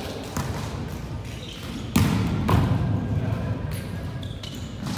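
Volleyball being played in a large gym hall: a few sharp smacks of hands and arms striking the ball, the loudest about two seconds in, with a short high shoe squeak on the court floor near the end.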